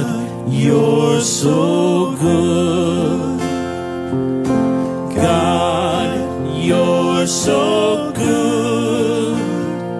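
Live worship song: strummed acoustic guitar and a Roland Juno-DS keyboard holding chords under a man's sung melody.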